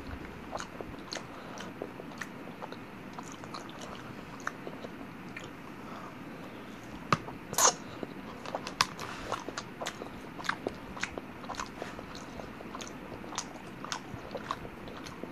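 A person chewing lasagna, with many small wet mouth clicks and a louder brief noise about seven and a half seconds in.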